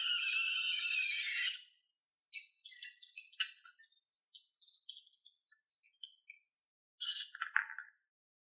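A high hiss with a tone sliding down in pitch, cutting off about a second and a half in, then sticky slime being squeezed, crackling with small wet pops and clicks, with a last short burst of crackles near the end.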